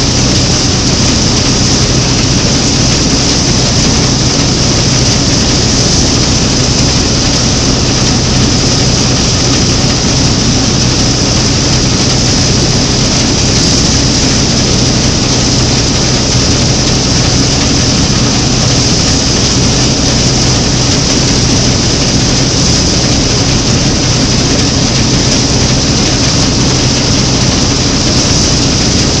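Claas Matador Standard combine harvester running steadily while cutting and threshing, heard close up from the open driver's platform: engine and threshing works together make a loud, unbroken mechanical drone.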